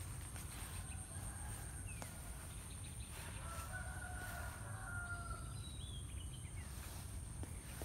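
A faint rooster crowing once, a single drawn-out call about three seconds in, over low wind rumble on the microphone.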